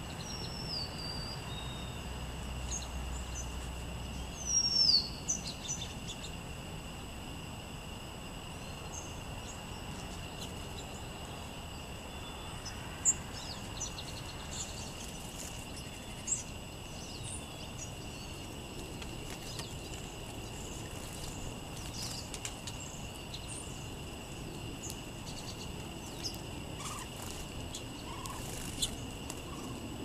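Small songbirds calling outdoors: a downward-slurred call near the start, a louder call about five seconds in, then scattered short chirps, over a steady hiss and a faint constant high tone. Two sharp taps stand out, around thirteen and sixteen seconds in.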